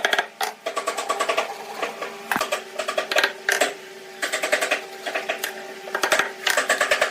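A power tool running in short bursts of rapid mechanical clatter, several times over a faint steady hum.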